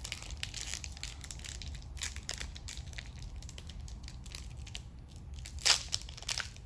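Foil wrapper of a Pokémon TCG booster pack being torn and peeled open by hand, a steady run of crinkles and crackles with one louder rip near the end.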